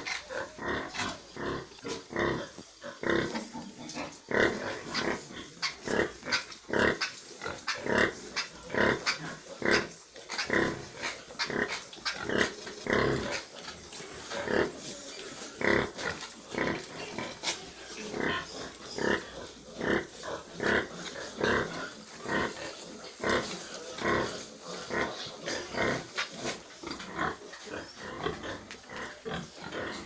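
Pigs in a pen grunting, a steady stream of short calls coming a few every second.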